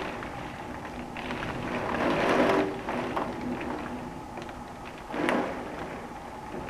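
Summer storm with wind and rain: a steady rush that swells in gusts about two seconds in and again just past five seconds, with scattered sharp ticks.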